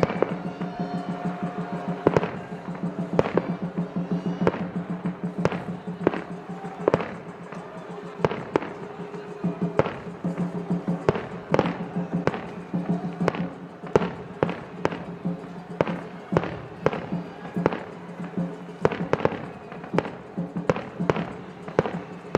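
Aerial fireworks in a star mine barrage, bursting in an irregular run of sharp bangs one to three a second, over a steady droning tone.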